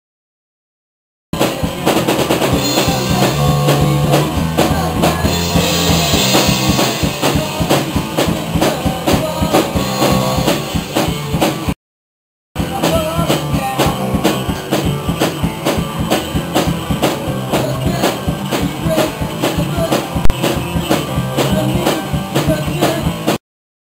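Live pop-punk band playing: electric guitar, electric bass and a Pearl drum kit hit hard in a steady fast beat. The sound cuts out completely for about a second at the start, again briefly around the middle, and just before the end.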